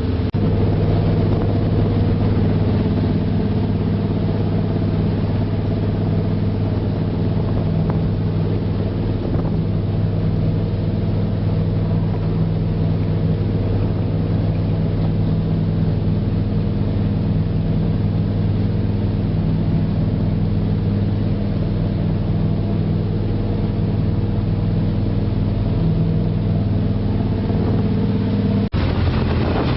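Small passenger ferry's engine running steadily at cruising speed, a constant low hum with an even drone. About a second before the end it breaks off abruptly into wind noise on the microphone.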